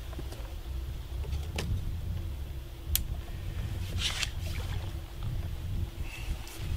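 Low, uneven rumble of wind on the microphone, with a few short sharp clicks.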